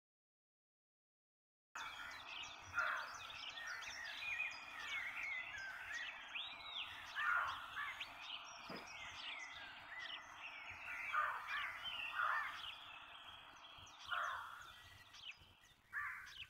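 Total silence for about two seconds, then several wild birds singing and calling over a faint hiss of outdoor air: many short chirps and quick rising and falling whistles, overlapping and irregular.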